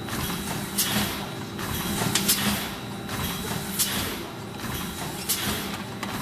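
Horizontal form-fill-seal pouch packing machine running: a steady mechanical hum and clatter, with a short sharp hiss-like burst about every one and a half seconds as it cycles.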